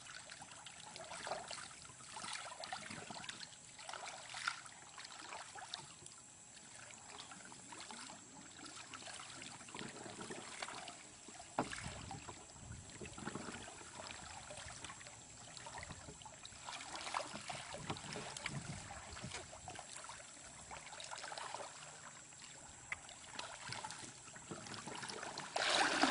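Creek water sloshing and swirling around the legs of people wading through a shallow river, with small irregular splashes and ripples. It grows louder just before the end.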